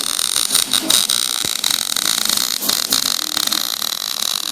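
Welding arc running, a steady crackling hiss scattered with sharp pops as the bead is laid.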